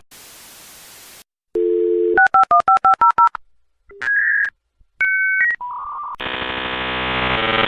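Dial-up modem connecting over a phone line. A brief hiss gives way to a dial tone, then a quick run of touch-tone dialing beeps. Paired handshake tones follow, and then a long buzzing modem tone.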